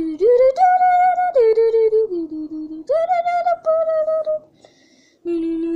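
A high voice singing a wordless tune in long held notes that step up and down, with a short break about three-quarters of the way through.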